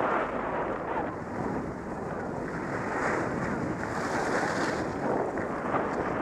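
Wind rushing over an action camera's microphone on a downhill ski run, mixed with skis hissing and scraping over groomed snow.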